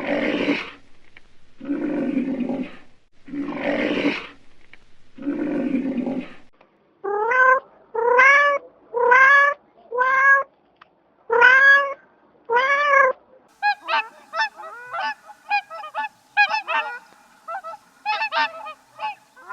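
A series of animal calls: four harsh, noisy calls of about a second each, then six honking calls that rise and fall in pitch, then a rapid run of short chirping calls near the end.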